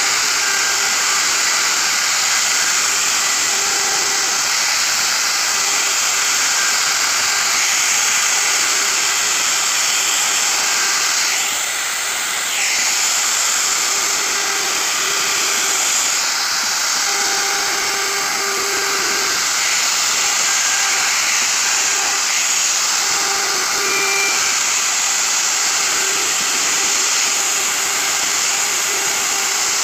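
Dong Cheng handheld electric plunge router running at full speed, its bit cutting carved grooves into a wooden board. A steady, high-pitched hiss that dips briefly about twelve seconds in.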